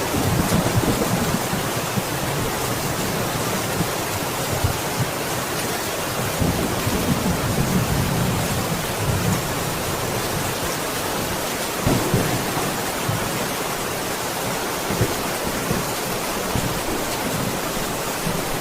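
Steady heavy rain, with low rolls of thunder rumbling under it early on and again in the middle, and a few sharp crackles later.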